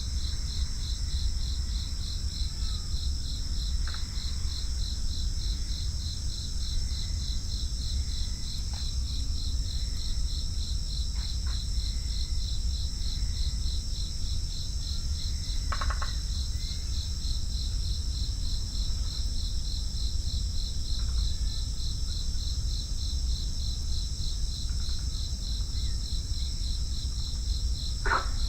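Crickets chirping in a steady chorus, a high, rapidly pulsing trill that never lets up, over a low rumble. A few faint short calls stand out briefly, the clearest near the end.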